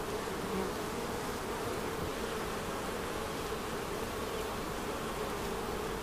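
Honeybees buzzing in numbers around their hives: a steady, unbroken drone.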